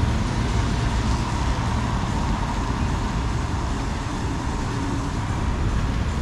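Road traffic noise: a motor vehicle running close by, a steady low rumble with no distinct events.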